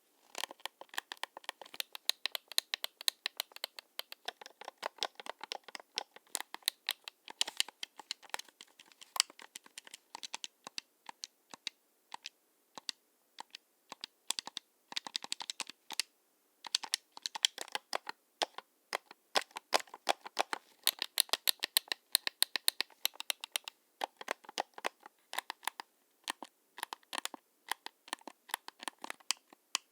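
Xbox One controller being worked rapidly by hand: a dense, irregular run of plastic button clicks and rattles, pausing briefly about twelve and sixteen seconds in.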